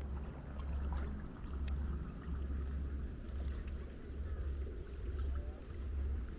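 Small waves lapping in the clear shallows of a lake, with a few faint splashes, under a low wind rumble on the microphone that swells and fades every second or so.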